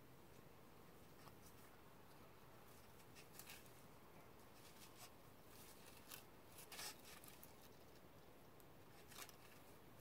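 Near silence: faint outdoor background with a few brief, soft scratchy rustles, the clearest about seven seconds in.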